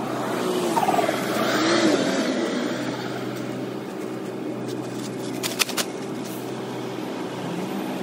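Engine running steadily, its pitch swinging up and down in the first two seconds, with two sharp knocks about five and a half seconds in.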